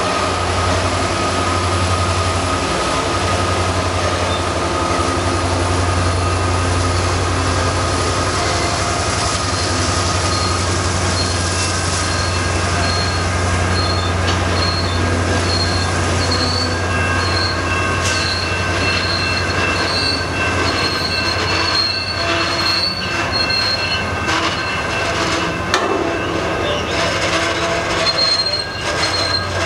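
A CN freight train rolling past close by, with a steady low rumble and high, steady wheel squeal. Sharp clicks of wheels over the rail come thicker in the second half.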